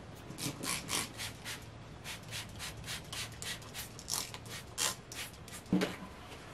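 Cleaning a plastic cooler with a spray bottle and paper towels: a quick run of short hissing strokes, about three a second, with one louder knock near the end.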